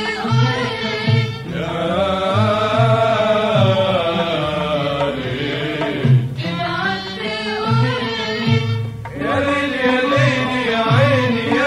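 Arabic song with singing and instrumental accompaniment. Long, wavering sung phrases break off about 1.5 and 6 seconds in, over a repeating low beat.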